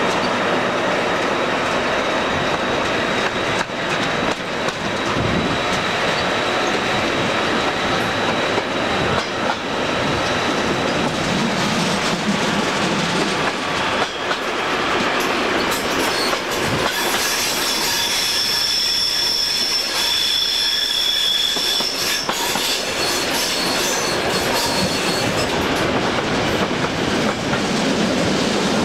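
A locomotive-hauled train running on a curving branch line, heard from an open window just behind the red locomotive. The wheels rumble and clatter over the track, and past the middle a high wheel squeal sets in for several seconds as the wheels grind through a curve.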